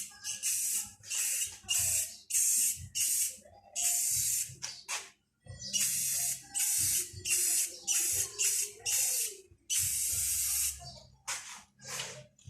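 Aerosol can of Rust-Oleum rust-preventive paint spraying in short hissing bursts, about two a second, with a few longer sprays and a brief pause in between.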